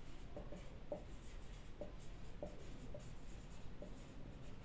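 Marker pen writing on a whiteboard: faint, short squeaks and scratches, one after another, as a word is written out stroke by stroke.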